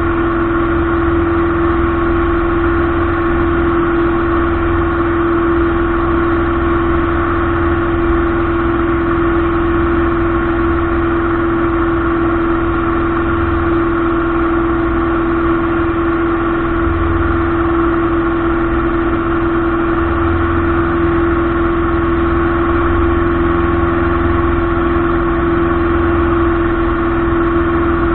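Light aircraft's piston engine and propeller droning steadily at constant power, one strong unchanging tone over a dense engine hum.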